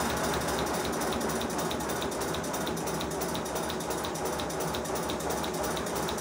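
5 inch gauge GWR pannier tank model locomotive running in reverse on compressed air on a rolling road: a steady, rapid mechanical clatter from its motion and wheels turning on the rollers.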